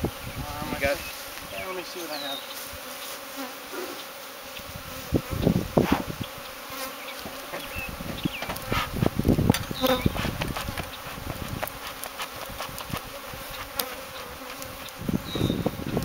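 A cloud of honeybees buzzing around an opened nuc, a steady drone, with a few scattered knocks and clicks.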